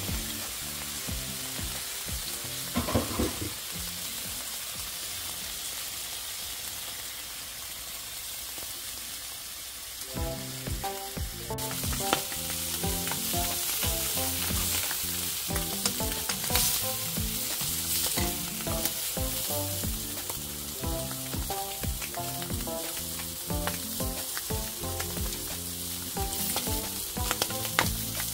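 Slices of luncheon meat and strips of red and yellow bell pepper sizzling as they fry in a non-stick pan, a steady crackling hiss that grows louder about ten seconds in.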